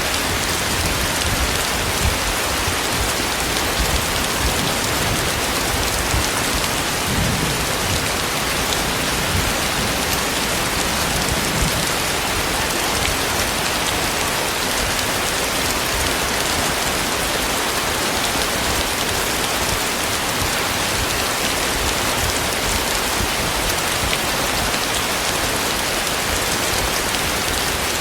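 Heavy rain falling steadily: a dense, even hiss of rain that does not let up.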